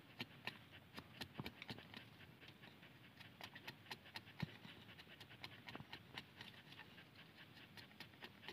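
Faint, irregular clicks and crackles over a low hiss.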